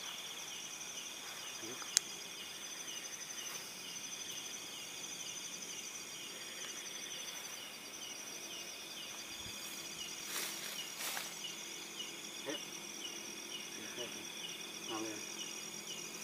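Night insects, crickets among them, chirping in a steady chorus of rapid, evenly repeating pulses, with one sharp click about two seconds in.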